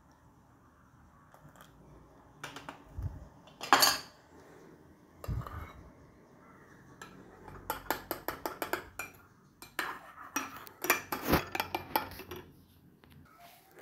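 A metal spoon stirring in a mug, clinking quickly and repeatedly against its side for several seconds as whipped coffee is mixed into milk. A few single knocks come first.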